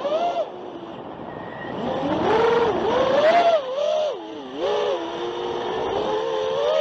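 Holybro Kopis 2 FPV quadcopter's four brushless motors and propellers whining, heard through the onboard camera's microphone. The pitch rises and falls with throttle changes, loudest from about two seconds in and dipping low around four and a half seconds in.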